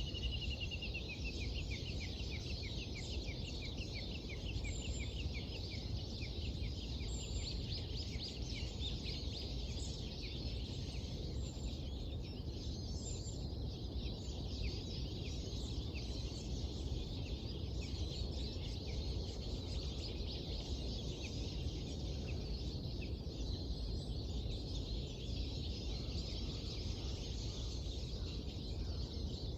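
Birds chirping at dawn: many short, quick calls, busiest in the first half, starting with a fast run of notes that falls in pitch. A steady low background rumble runs underneath.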